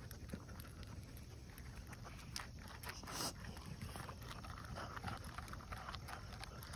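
Dog sniffing and nosing into the cups of a silicone muffin tin to eat hot-dog pieces: faint short snuffs and small clicks over a low background rumble, with one louder snuff a little after three seconds.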